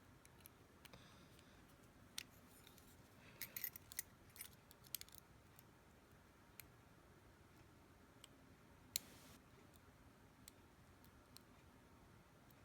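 Faint scattered metallic clicks and ticks of lock-picking tools working in the keyway of a five-pin Master Lock 150 padlock, with a quick run of clicks a few seconds in and a single sharper click about nine seconds in.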